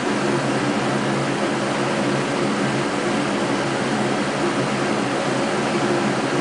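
A steady hum with a layer of hiss, holding level and pitch without a break.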